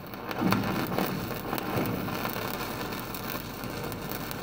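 Electric welding arc crackling and sizzling steadily.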